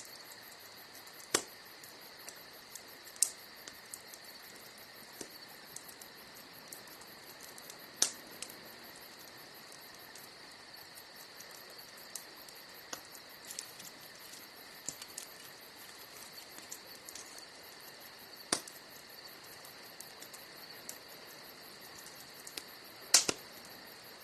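Campfire crackling, with a few sharp pops standing out (about a second in, at three, eight and eighteen seconds, and the loudest near the end), over crickets chirping steadily.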